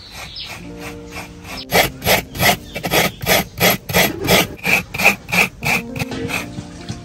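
A coconut half is scraped back and forth over the metal blade of a hand coconut scraper (wooden board), grating the flesh in rhythmic rasping strokes about three a second. The strokes turn much louder about two seconds in and ease off again near the end.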